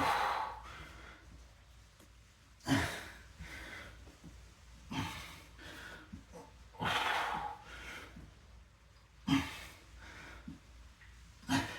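A person breathing hard from exertion, with heavy, noisy breaths coming about every two seconds.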